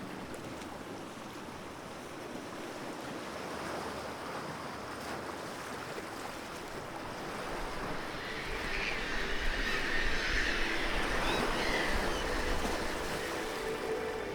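Sea waves washing and breaking on a rocky shore, a steady rush of surf that swells louder about two thirds of the way through.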